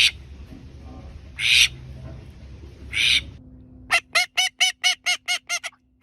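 Three short hissing bursts, then from about four seconds in a rapid, regular series of honking calls from a bird, about six a second.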